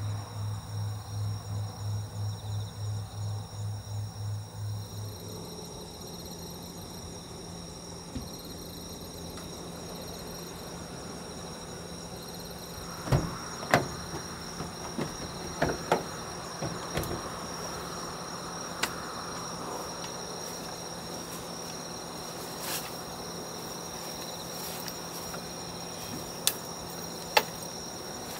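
Crickets chirring steadily through the night, with scattered sharp clicks and knocks from gear being handled in the van from about halfway on. A low pulsing drone, about three pulses a second, stops about five seconds in.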